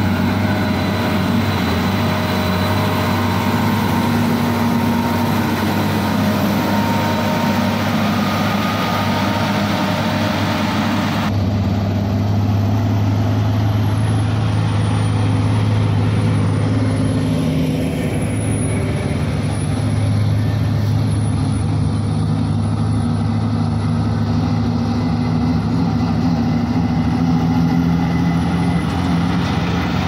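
Heavy diesel engines of mining machines running steadily as they drive past: first a SANY motor grader, then, after an abrupt change about a third of the way in, large off-road mining dump trucks.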